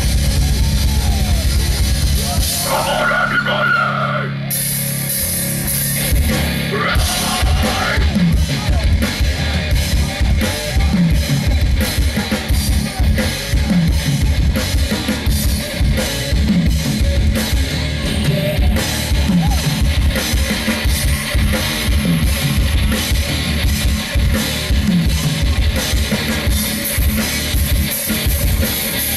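Death metal band playing live: rapid, dense drumming with bass drum and cymbals under distorted guitar and bass.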